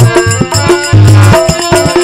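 Instrumental passage of a Rajasthani bhajan: a dholak plays a quick rhythm of deep bass strokes, one of them held longer about a second in. Handheld clappers clack along with it, and a harmonium holds the tune underneath.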